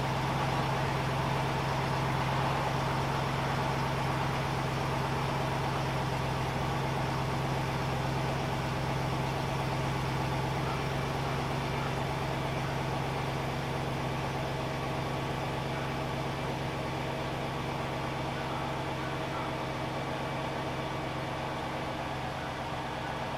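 BMW 740iL's V8 engine idling steadily, with an even, unchanging note and no revs.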